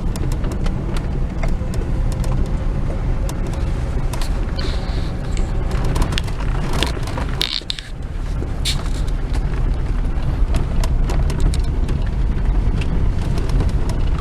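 Car driving, heard from inside the cabin: a steady low rumble of engine and road, with scattered knocks and rattles. The rumble eases briefly a little past halfway.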